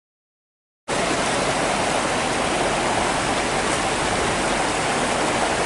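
A rocky mountain creek rushing over stones and small cascades: a steady rush of water that cuts in suddenly about a second in.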